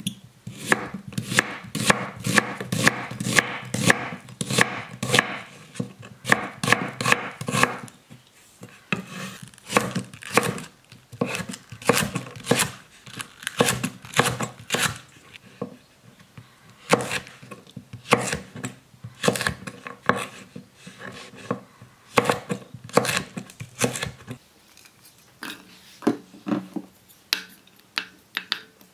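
Chef's knife chopping onion and green onion on a wooden cutting board: quick, even knocks of the blade on the board. They thin out to sparser, lighter clicks about 24 seconds in.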